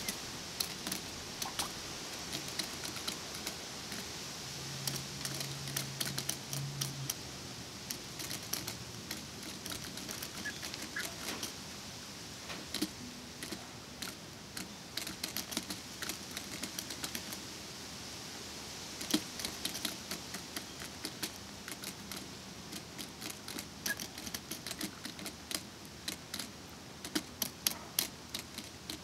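Hens pecking at the nipple drinkers of a hanging bucket waterer: irregular sharp clicks and taps as their beaks strike the valves.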